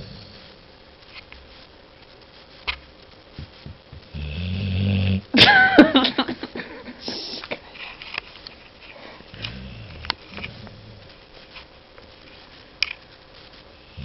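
Sleeping dog snoring heavily, with deep snores several seconds apart. The loudest snore, a few seconds in, is followed at once by a short high sound that slides down in pitch; a fainter snore comes near the middle.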